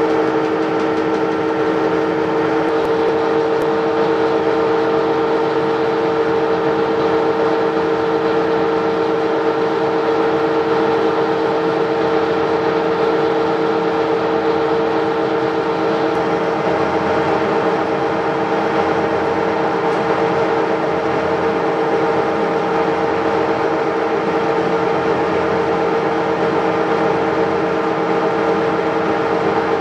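Monarch metal lathe running steadily, its spinning three-jaw chuck and drive giving a constant whine of several tones, while a metal slug is faced and turned down.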